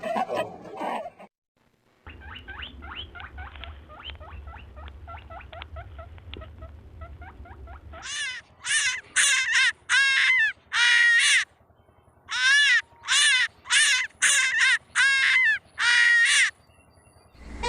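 A series of animal calls. Soft, rapid calls over a low hum lead into about a dozen loud, harsh calls, each about half a second long and arching in pitch.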